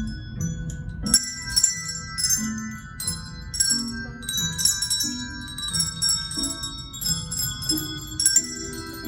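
Handbells rung as an ensemble, playing a melody note by note at about two strikes a second, each note ringing on over a low steady layer underneath.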